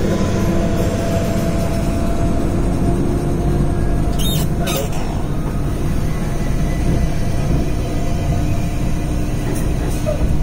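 Semi-truck engine running and road noise heard from inside the cab as the truck drives, a steady low rumble with a faint steady hum. A couple of brief sharp sounds come about four and a half seconds in.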